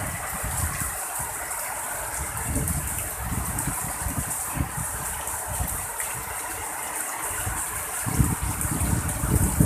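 Heavy rain with strong gusty wind: a steady hiss of rainfall, with irregular low rumbles of wind gusting over the microphone that grow stronger near the end.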